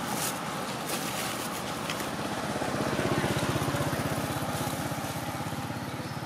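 A motorcycle engine passing on the road. It grows loudest about three seconds in, then fades as it moves away.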